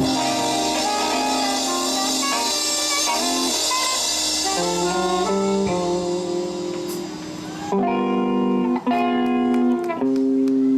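Live band playing an instrumental passage: guitar and saxophone over bass and drums. A little past halfway the cymbal wash stops, leaving short repeated chords with brief gaps between them.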